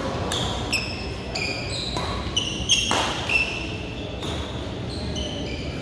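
Badminton rally: sharp racket hits on the shuttlecock and short, high squeaks of shoes on the court floor, repeated irregularly and echoing in a large hall.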